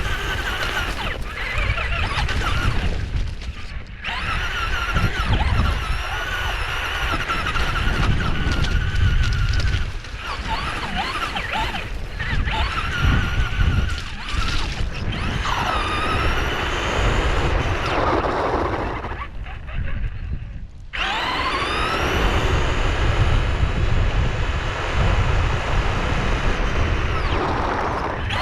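Electric RC car running, its motor whine rising and falling in pitch with the throttle over a steady low rumble. The whine drops away briefly about four seconds in and again about twenty seconds in.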